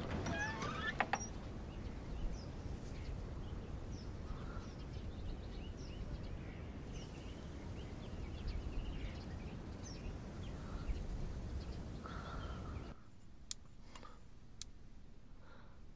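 Outdoor ambience: a steady low rumble with scattered bird chirps. About 13 seconds in it drops to a quieter background, with two sharp clicks.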